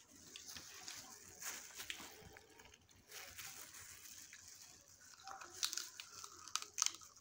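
Snow crab shell cracking and crackling as it is picked apart by hands in crinkling plastic gloves. A few sharper snaps come near the end, as she bites into the crab meat.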